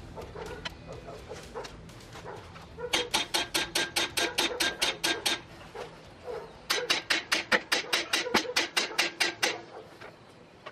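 Two quick runs of sharp metallic clicks, about six a second, with a short pause between, from hand-tool work on a Volkswagen Beetle's front beam axle.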